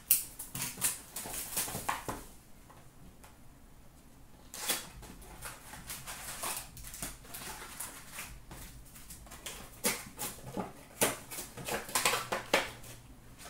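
A hockey card hobby box being opened by hand and its packs pulled out and stacked: cardboard and pack wrappers rustling, scraping and crinkling in short bursts, busiest at the start and again near the end.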